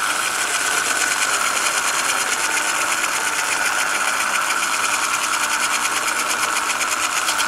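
Model railway locomotive's small electric motor running steadily on the rails, a high whine with a fine rapid ticking over it; its owner thinks the noise comes from the pickup wheels rather than the motor.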